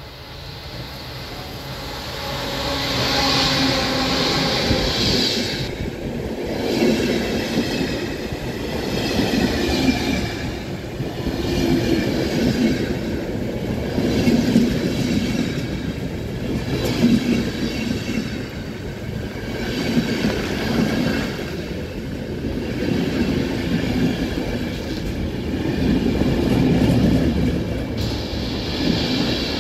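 ZSSK locomotive-hauled passenger train passing close by on the platform track. The level swells over the first few seconds as the electric locomotive goes past. Then comes a long run of coaches, the wheel rumble and rail clatter rising and falling every couple of seconds as each coach's bogies pass.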